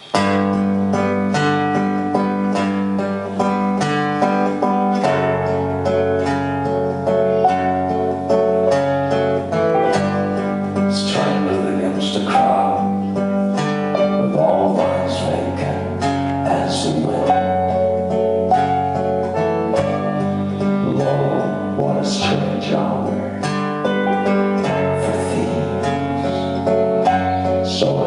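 A live band plays a country-folk song: plucked acoustic guitar and strings over steady sustained bass notes, starting abruptly.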